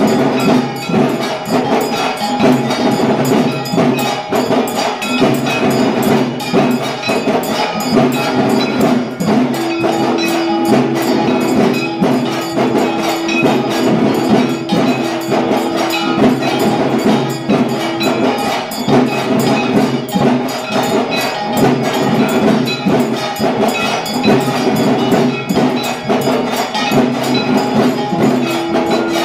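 Temple bells and percussion ringing and clanging continuously in a fast, dense rhythm, the accompaniment of a Durga puja aarti. A long steady held tone joins for several seconds in the middle and again near the end.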